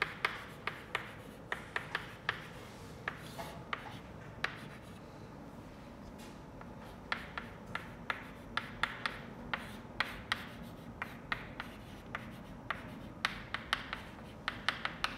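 Chalk writing on a blackboard: a run of quick sharp taps and short scratchy strokes, with a pause of about two seconds near the middle.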